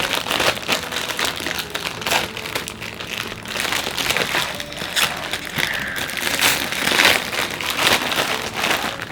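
Crinkly blind-box packaging being handled and torn open by hand, a continuous dense crinkling and crackling with sharper rustles throughout.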